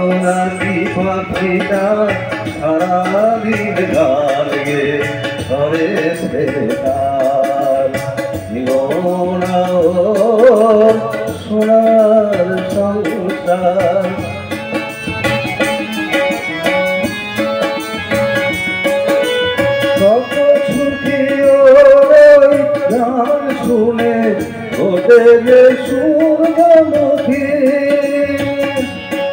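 Bengali song accompaniment played live: tabla drums keeping a rhythm under a harmonium and a plucked string instrument, the melody sliding in pitch in places.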